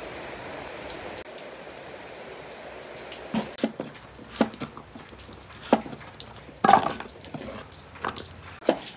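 Steady rain hiss at first, then a cleaver chopping white radish on a wooden cutting board: irregular sharp knocks from about three seconds in, with one louder knock a little past the middle.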